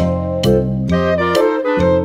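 Background music: an upbeat tune with a steady beat and melody notes changing about twice a second.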